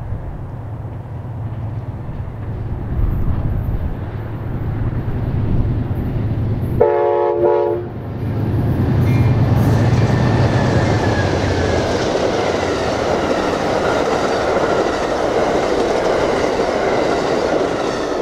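An Amtrak passenger train passes close by. The diesel locomotives' engines rumble as they come in, and the horn gives one short blast about seven seconds in. Then the passenger cars roll past with a steady rolling noise of wheels on rail.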